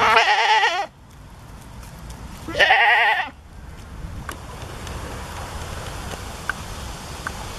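Goat bleating twice, close by, each bleat about a second long with a quavering pitch.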